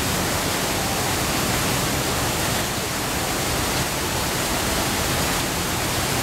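Small waterfall splashing down rocks into a pond: a steady, even rush of water.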